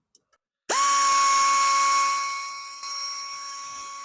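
Cordless power driver with a 1/4-inch socket spinning up suddenly under a second in and running with a steady high whine, backing out the mounting bolts of a door lock actuator; it eases off a little about halfway through and keeps running.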